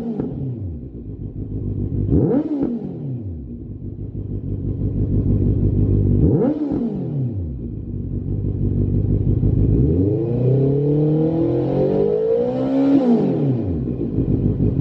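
Honda CB650F's inline-four engine through a Lextek OP1 aftermarket slip-on silencer, idling and being revved with the bike standing still. A rev drops back to idle at the start, two quick throttle blips follow about 2 and 6 seconds in, then a longer rev from about 10 seconds climbs, holds, and falls back to idle near the end.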